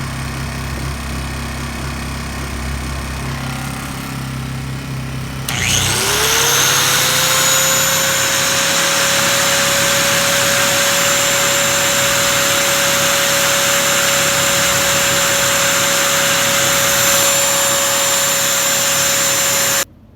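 Honda EU1000i generator engine running with a steady hum. About five and a half seconds in, a louder high-speed motor spins up, its whine rising quickly and then holding steady, and it cuts off abruptly near the end.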